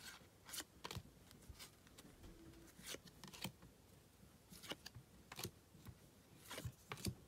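Faint, short slides and flicks of 2020 Topps Series 1 baseball cards being flipped through by hand, one card at a time, about ten in all at an uneven pace.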